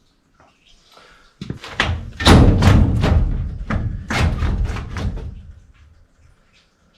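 A run of heavy knocks and thuds, strongest in the middle, as a new evaporator coil is shoved and banged upward into place in the ductwork.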